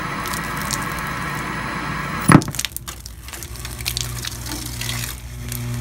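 Early-2000s RCA CRT television's salted circuit board shorting out as water is poured on it while the set is powered: one loud sharp pop about two seconds in, then scattered crackling and snapping, settling into a steady electrical buzz.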